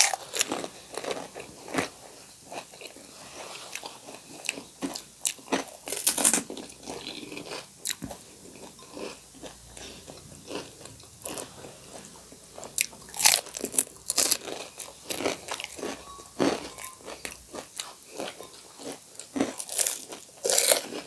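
Panipuri being bitten and chewed: crisp, hollow fried puri shells cracking and crunching in the mouth in quick, irregular bites, some much louder than others.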